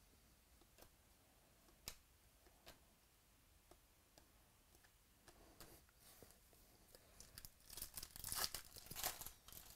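A few faint clicks of trading cards being handled, then a 2018 Stadium Club Baseball pack wrapper torn open and crinkled for a couple of seconds near the end.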